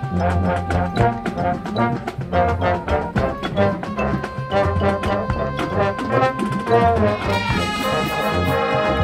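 High school marching band playing, brass carrying the melody over a rhythmic low pulse. About seven and a half seconds in, the brass moves to brighter, held chords.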